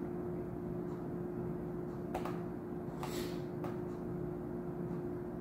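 Room tone with a steady low hum, broken by a couple of faint, short computer mouse clicks about two seconds in and again about three and a half seconds in.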